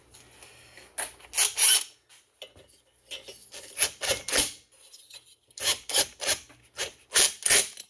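Cordless power driver with a socket, run in several short rasping bursts to tighten the reverse-thread nut on a vintage chainsaw's flywheel.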